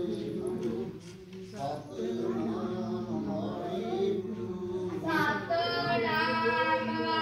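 Devotional hymn singing: a high voice singing long, wavering notes over a steady low accompaniment, growing louder about five seconds in.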